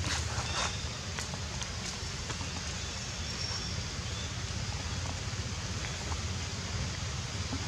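Steady outdoor background noise with a low rumble, likely wind on the microphone, and a few faint clicks in the first second.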